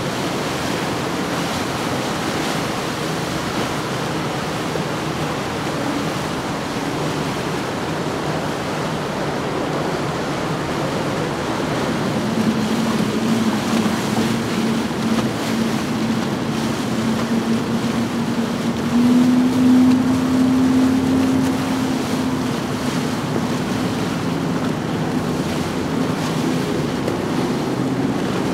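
Motorboats running under way on outboard power, mostly the hiss of water wash with wind on the microphone. From about halfway a single Yamaha outboard on a Cobalt 25 SC gives a steady drone, which rises slightly in pitch and is loudest about two-thirds through.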